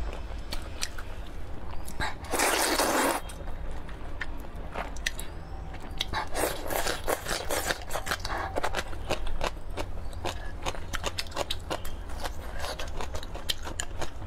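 Close-miked eating of rice noodle soup: wet chewing with many sharp mouth clicks, a loud slurp about two seconds in and more slurping between about six and eight seconds in.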